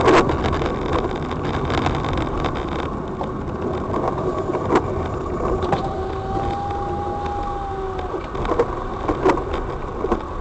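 A car driving along a rough road: steady engine and road noise with a few sharp knocks scattered through.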